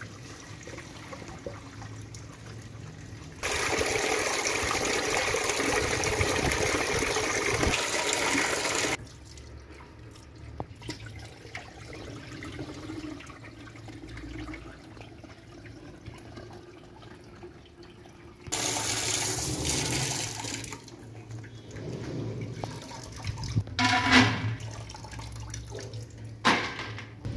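Water rushing and splashing in a steel tray as split chickpeas (chana dal) are rinsed. There are two loud spells, about 3 seconds in for some 5 seconds and again after about 18 seconds, with quieter swishing between. Near the end come a few sharp rattles as handfuls of wet dal drop into an empty steel bowl.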